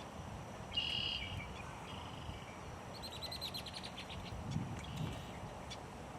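Birds calling in the background: a short call about a second in, then a rapid trill of about ten notes a second from about three seconds in, over a faint steady high-pitched drone.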